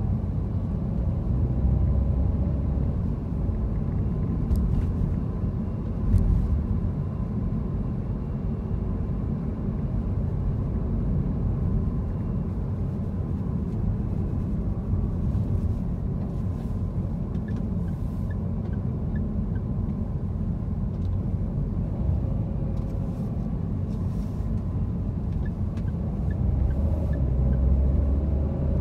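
Steady low rumble of a car's engine and tyres on the road, heard from inside the cabin while driving in city traffic, swelling a little at times. A few faint clicks and two short runs of light ticking sound over it.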